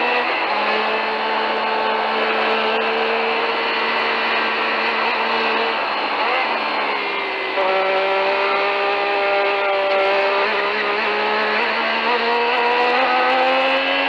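Onboard sound of a 1983 Renault Formula 1 car's turbocharged V6 running at high revs down a straight. Around six seconds in the engine note eases off. It picks back up at a lower pitch about a second and a half later, then climbs slowly as the car accelerates again.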